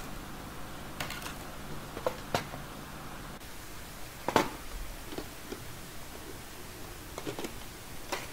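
Clear plastic cover being lifted off a plastic parts tray and handled, with scattered crinkles and clicks of stiff plastic; the loudest comes about four seconds in.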